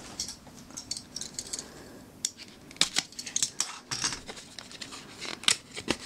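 Small cardboard box being handled and opened by hand: scattered light clicks, taps and scrapes of card as a taped flap is pulled open.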